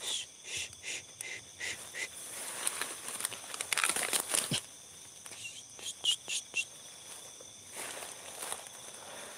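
Crickets and other night insects trilling steadily in high, thin tones, with footsteps and rustling through grass and undergrowth, loudest about four seconds in and again about six seconds in.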